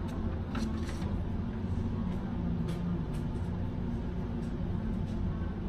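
Steady low hum of room and machinery noise, with a few faint clicks.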